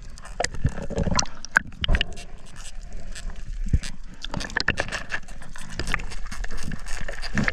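Water splashing and sloshing around swimming divers, with many irregular clicks and knocks.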